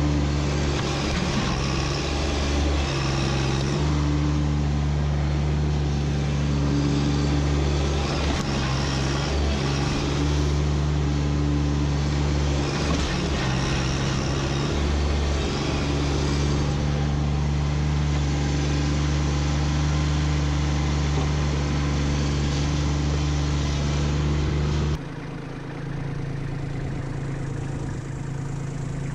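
Kubota B2601 compact tractor's three-cylinder diesel engine running under load while the loader's stump bucket digs. The engine's pitch and level shift a few times as the load changes. Near the end the sound drops suddenly to a quieter, lower-pitched engine note.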